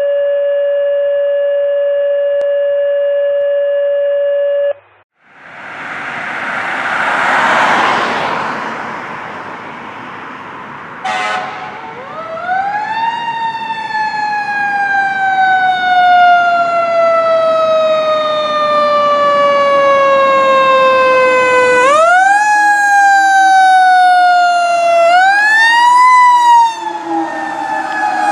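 A steady electronic tone for about five seconds, then road noise and a short blast, then a fire engine's Federal Q mechanical siren winding up and slowly coasting down in pitch. It is wound up again twice near the end.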